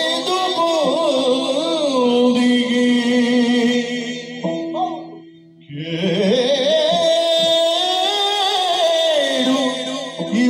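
Yakshagana bhagavata singing a padya in a richly ornamented line over a steady drone. The singing breaks off briefly a little past halfway, then a new phrase rises and is held.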